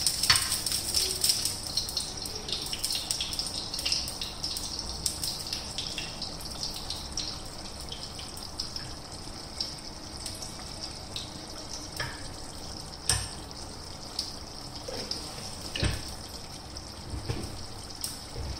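A spoonful of ghee melting and sizzling in a small frying pan over a gas flame: a steady hiss with scattered crackles that eases off after the first few seconds. A few light knocks come in the second half.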